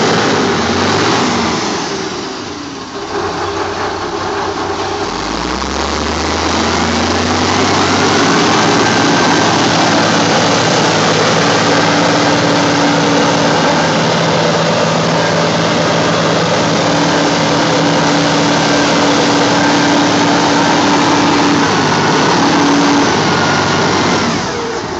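Diesel engine of a three-axle all-terrain mobile crane working hard as it drives through deep mud. The engine note dips briefly, rises from about five seconds in, then holds a steady, loud, high-revving drone with a whine, falling away near the end.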